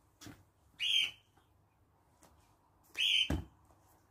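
Two short, high-pitched whistle blasts about two seconds apart, the second followed at once by a dull thump.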